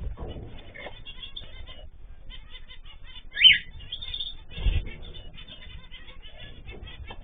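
Small cage birds chirping and calling, with one loud rising call about three and a half seconds in. Two low thumps, one at the start and one a little after the loud call.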